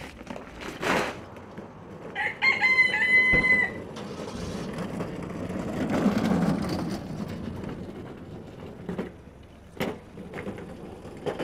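A rooster crowing once, a long call about two seconds in. A rustling noise follows, then a few sharp clicks near the end.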